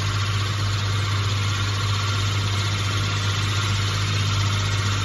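Pillar drill running with a Forstner bit cutting slowly into an acrylic sheet: a steady motor hum under a steady hiss of cutting.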